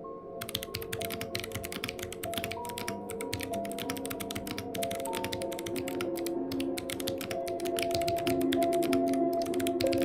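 Rapid, continuous typing on an IQUNIX F97 mechanical keyboard with clicky Kailh Box White switches, a dense stream of key clicks, over background music.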